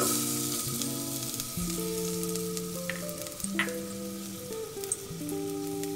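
Sliced onions dropping into hot cooking oil in a steel pot and sizzling steadily; the sizzle starts suddenly as they go in. Two light clicks come about three and three and a half seconds in.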